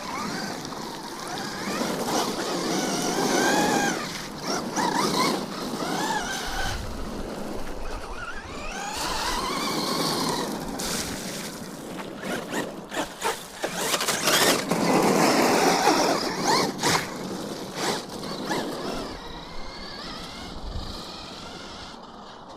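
Electric Arrma RC car's motor whining up and down in pitch as it is throttled through mud, in several surges, over a steady noise of spinning tyres and churned mud and water.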